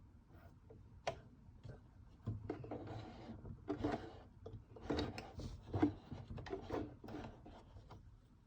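Hands working on the parts of a Brother sewing machine during reassembly: a sharp click about a second in, then irregular clicking and rubbing of small parts.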